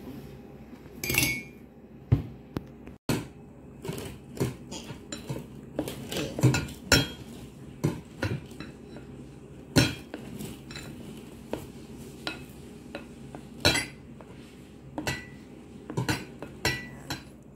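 A spoon stirring thick pancake batter in a glass mixing bowl, knocking and scraping against the glass in irregular clinks. A few of the knocks leave a brief ring from the glass.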